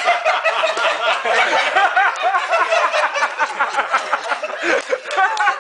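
Several people laughing together, chuckles and laughter overlapping with bits of unclear chatter.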